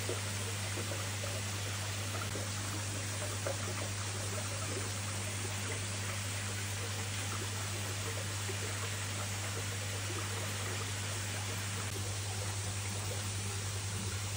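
Steady trickling, splashing water in a koi holding tank, over a constant low hum.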